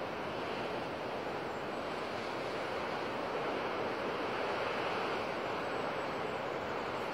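Ocean surf breaking and washing over rocks: a steady rush of water that swells a little about halfway through.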